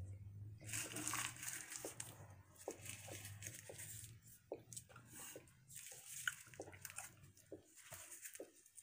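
A person chewing a large wad of bubble gum, five pieces at once, making irregular soft smacks and clicks of the mouth.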